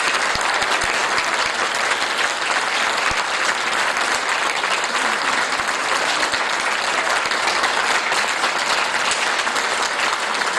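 Sustained applause from a hall audience and choir: many hands clapping in a dense, steady patter.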